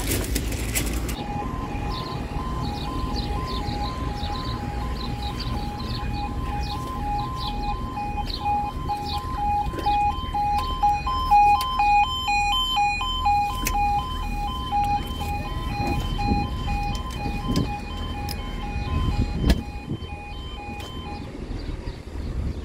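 Level crossing warning alarm sounding its two-tone yodel, alternating steadily between a lower and a higher pitch. It starts about a second in and stops shortly before the end, over a low background rumble, with one sharp knock near the end.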